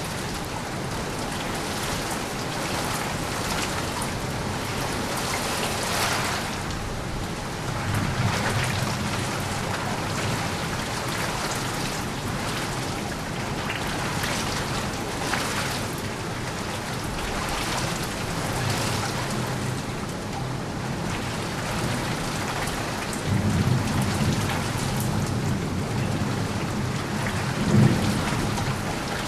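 Steady heavy rain falling, with thunder rumbling low in the background, building to a longer rumble in the last few seconds with a louder crack of thunder near the end.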